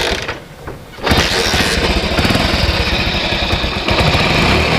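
Hero Honda's small single-cylinder four-stroke motorcycle engine being started, catching about a second in and then idling steadily. There is no timing chain rattle, since the chain tensioner spring has just been retensioned.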